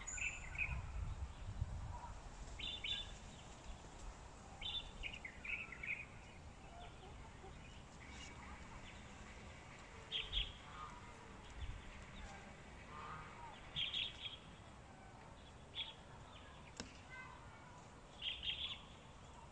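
Short, high bird chirps come in small clusters every few seconds over a faint steady background. There are a few soft low bumps and rustles, mostly in the first couple of seconds.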